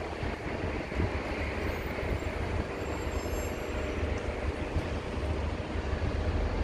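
Steady outdoor background noise with a low rumble and no distinct event.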